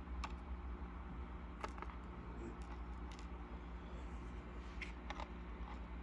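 A few scattered, faint small clicks of metal tweezers and lock pins being set down on a plastic pin tray, over a steady low hum.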